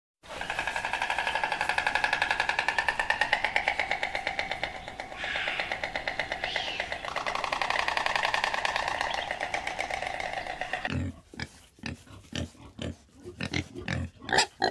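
Boars grunting and snorting in short, irregular bursts from about eleven seconds in. Before that, a long, rapidly pulsing call with a steady pitch comes from an animal that cannot be named.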